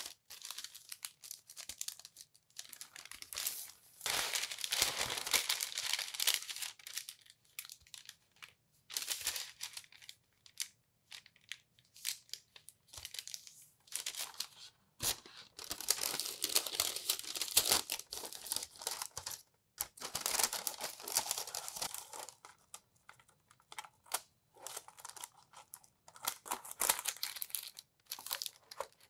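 Sheet of baking parchment being folded and creased by hand to line a metal loaf tin. It crinkles and rustles in bursts of a second or a few seconds, with short pauses between.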